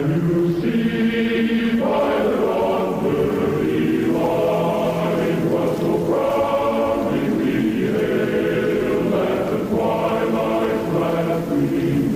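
Choir-like chanting music: sustained voices hold chords that shift every couple of seconds.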